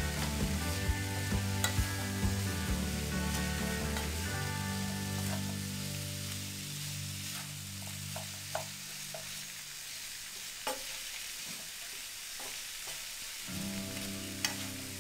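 Chanterelle mushrooms sizzling in a frying pan with a little water as they are stirred with a spatula, with scattered sharp clicks of the spatula striking the pan.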